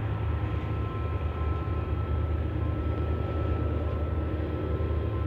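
Freight train hauled by TCDD DE 24000-class diesel-electric locomotives running away into the distance: a steady low rumble from the wagons on the track, with a faint steady high tone over it.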